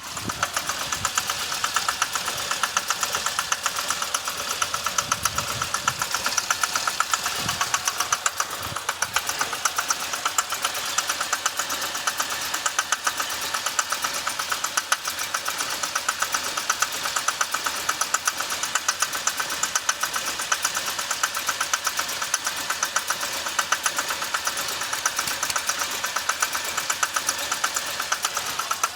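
2006 Chevy Impala's 3.5 L V6 idling roughly, with a fast, steady ticking over the engine noise. The owner's codes point to a cylinder 1 misfire (P0301) and an idle air control fault.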